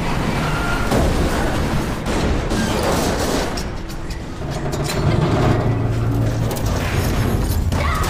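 Film action sound mix: rushing, spraying water and booming impacts from a wrecked aircraft fuselage over a waterfall, under a dramatic music score.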